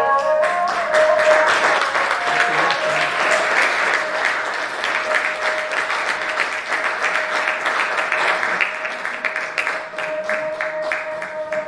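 Audience clapping, starting suddenly and thinning slightly toward the end. A short chord sounds as the clapping begins, and a single steady tone is held underneath throughout.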